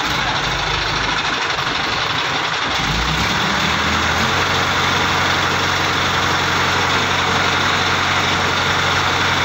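Diesel engine of a truck-mounted crane running steadily as it hoists a steel roof truss; its low, even hum grows firmer about three seconds in.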